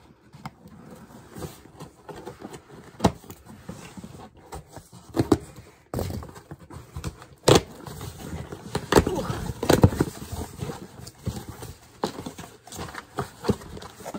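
A cardboard shipping box being opened and unpacked by hand: rustling and crinkling of packaging with irregular knocks and taps as items are handled, busier and louder from about halfway through.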